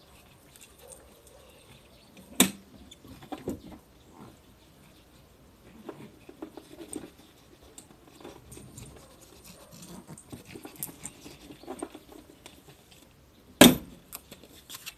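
Small dog sniffing and snuffling in the grass close to the microphone, with soft rustling and two sharp knocks, one about two and a half seconds in and a louder one near the end.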